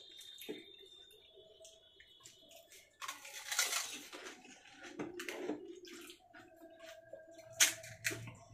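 Fuchka (pani puri) being handled and eaten: crisp puffed shells crunching and tamarind water splashing, with scattered small clicks. The loudest moments are a noisy crunch-and-splash about three seconds in and a sharp click near the end.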